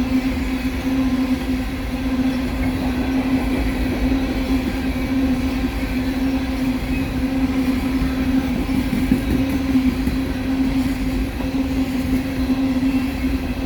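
Empty coal train's cars rolling past on the rails: a steady low rumble with one steady droning tone over it.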